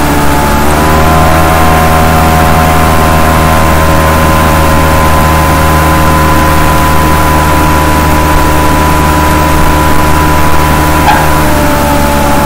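Steady, loud engine-like mechanical drone with a stack of pitched overtones, rising slightly in pitch about a second in and dropping slightly near the end.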